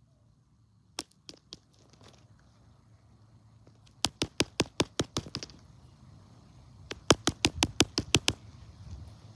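Rapid sharp clicks or taps: a few single clicks about a second in, then two quick runs of about eight to ten clicks each, roughly six a second. Each run lasts about a second and a half.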